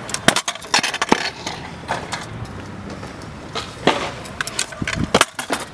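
Stunt scooter on concrete: wheels rolling, with a string of sharp clacks and knocks as the deck and wheels hit the ground and ledge on tricks and landings. Several clacks come close together in the first second, then single ones at intervals, and a last pair near the end.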